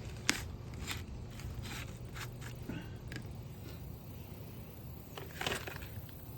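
Scattered scrapes and crunches in dirt while digging, with a sharp click about a third of a second in and a longer scrape near the end.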